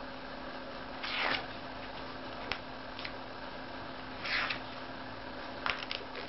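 Pages of a large hardcover book turned by hand: two papery swishes, about a second in and again past four seconds, with a few light paper ticks between and near the end, over a steady low hum.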